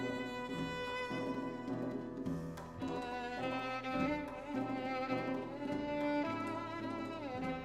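Violin playing the melody with sliding changes of pitch between held notes, accompanied by grand piano.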